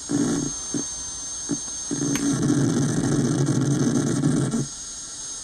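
Homemade CMOS noise synth, square-wave oscillators gated through a logic gate, putting out a low buzzy drone. It chops on and off at first, then holds for a couple of seconds and drops away near the end, with a thin steady high-pitched tone over it.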